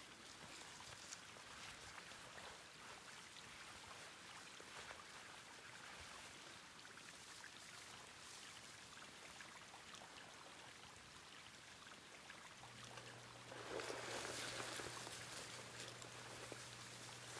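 Faint, steady hiss of outdoor ambience with small scattered crackles. About three-quarters of the way in, a louder rustling of heavy coat fabric being pulled on and handled, with a low steady hum coming in just before it.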